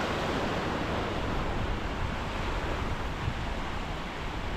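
Small surf washing steadily onto a sandy beach, with wind rumbling on the microphone.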